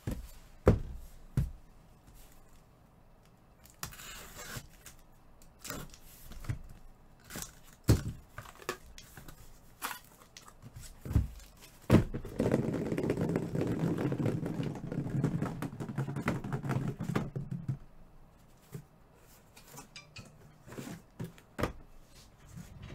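Cardboard shipping case being opened and unpacked on a table: scattered thumps and knocks as the case and the shrink-wrapped boxes inside are handled. About halfway through comes a longer stretch of rustling and scraping of cardboard and plastic.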